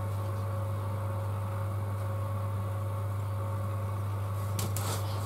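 A steady low electrical hum with a faint higher tone over it, and a few light ticks near the end.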